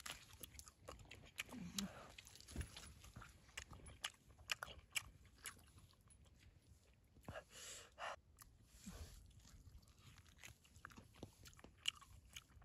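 Faint, close sounds of a person biting and chewing cooked chicken, with small irregular crunches and clicks.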